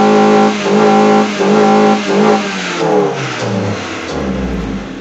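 Car engine fitted with a cone air filter, revved in repeated pulses of about two a second to the same high pitch, then the revs falling away over the last couple of seconds.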